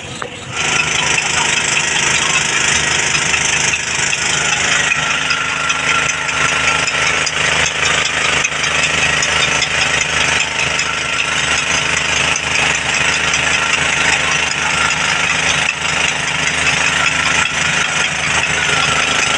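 Engine of a portable water pump running steadily under load, with the hiss of high-pressure hose jets spraying water. It comes in sharply about half a second in.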